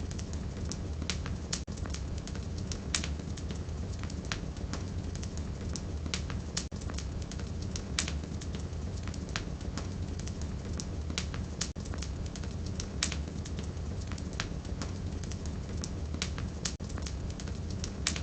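Firewood burning in a fireplace: irregular sharp crackles and pops, several a second, over a steady low rumble of the flames.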